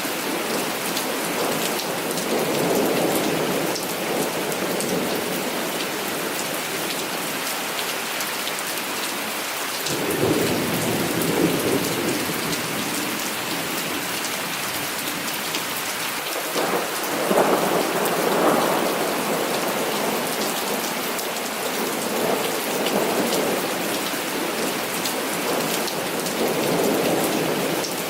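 Heavy rain falling steadily, with rolls of thunder rumbling through it and swelling loudest about ten seconds in and again about seventeen seconds in.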